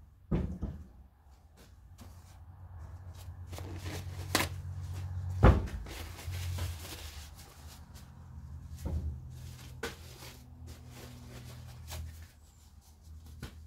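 Workshop handling sounds: a series of knocks, clicks and clatter as a small trimmer engine and tools are set down and moved about on a wooden block on a workbench. A sharp knock about five and a half seconds in is the loudest.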